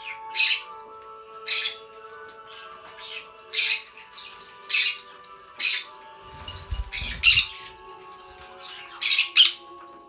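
Green-cheeked conures squawking: short harsh calls roughly every second, two close together near the end.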